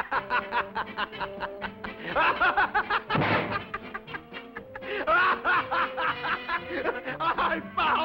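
A cartoon character's rapid, staccato laughing over orchestral cartoon music, with a brief noisy sound effect about three seconds in.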